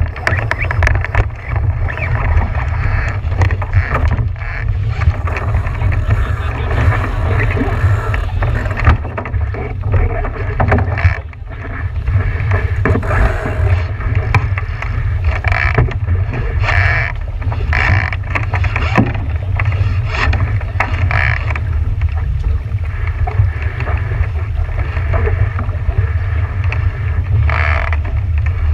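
Wind buffeting the microphone over water rushing and slapping against a boat's hull, with frequent sharp splashes and a steady low rumble underneath.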